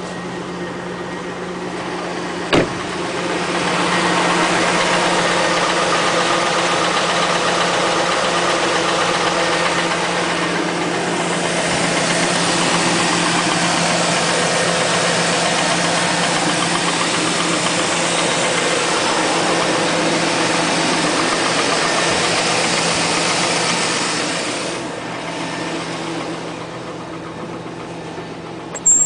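Chevrolet Tahoe 5.3-litre V8 idling after a cold start, with a knock that the owner takes for piston slap, a fault that shows only on first start. The engine grows louder a few seconds in and falls back near the end, with one sharp click early on.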